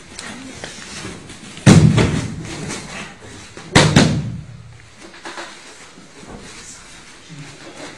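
Two heavy thuds about two seconds apart, a body being thrown down onto training mats during a jiu-jitsu takedown. The second is a quick double thud.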